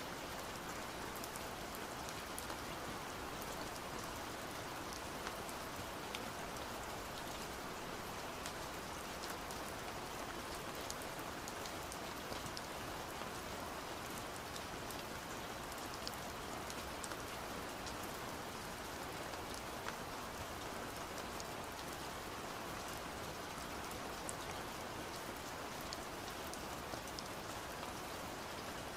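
Steady rain-like patter: an even hiss with many faint ticks scattered through it, unchanging throughout.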